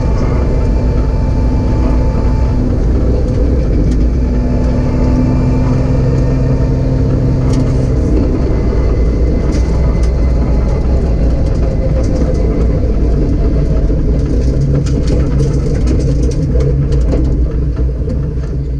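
BMW M3 rally car's engine running hard under way, holding a fairly steady pitch that shifts about eight seconds in, over a constant loud rumble with scattered sharp ticks.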